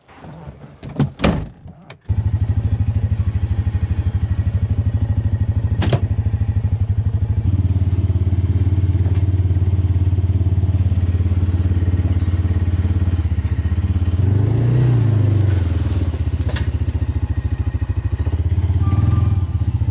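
A few clanks and knocks, then about two seconds in an engine starts and runs steadily with a fast even beat. Its speed rises and falls briefly twice, the first time about three-quarters of the way through and again near the end, as the vehicle moves off hauling the chained log.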